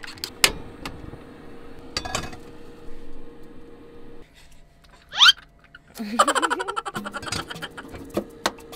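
A baby squealing once with a quick rise in pitch about five seconds in, then babbling and giggling for about a second. A few sharp knocks come earlier.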